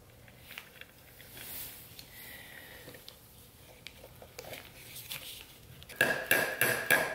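A quick run of hammer taps, about five a second, driving the shift kit's new plug into its bore in a 4L80E transmission's aluminium valve body, each strike with a metallic ring. The taps start near the end, after a few seconds of faint clicks from the small parts being handled.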